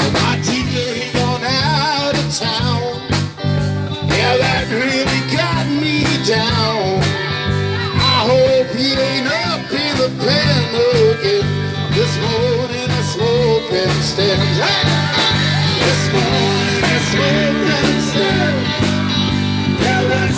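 A live blues-rock band playing loud, with electric guitar, bass guitar and drums.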